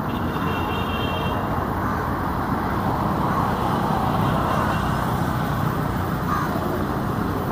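Steady road traffic noise, with a brief high-pitched tone in the first second and a half.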